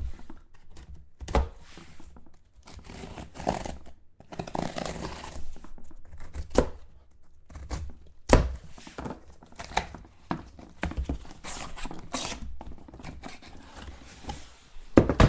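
A sealed box of football trading cards being unwrapped and handled. There is tearing and crinkling of the wrapping, broken by a few sharp knocks of the box against the table.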